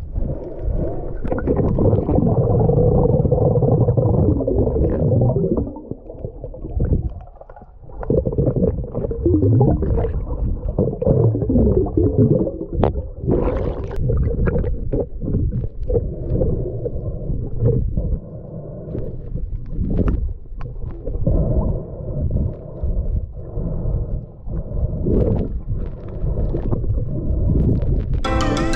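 Muffled underwater sound picked up by an action camera held under the sea: a steady low rumble of moving water with gurgles and scattered clicks.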